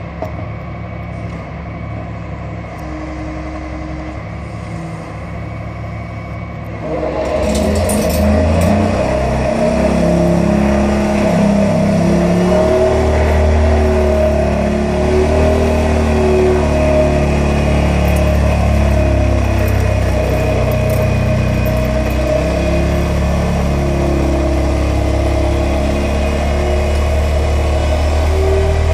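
Excavator engine running. About seven seconds in, an excavator-mounted vibro hammer starts and runs steadily and much louder, with a held mid-pitched hum over a heavy rumble, as it vibrates a steel pile down into the ground.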